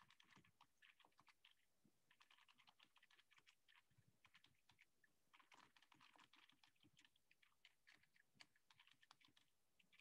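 Faint computer keyboard typing: a quick, uneven run of key clicks with a few short pauses.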